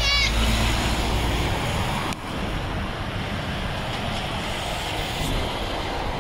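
Articulated lorries passing close by: a tractor unit's diesel engine going past with a deep low rumble and a brief high squeal at the very start, then, after a cut about two seconds in, a Volvo FH lorry drives by with steady engine, tyre and wind noise.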